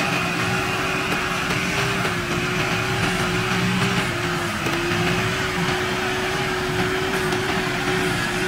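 A 90 hp farm tractor's diesel engine running steadily under load as it pulls a disc plough, with a steady hum that wavers only slightly in pitch.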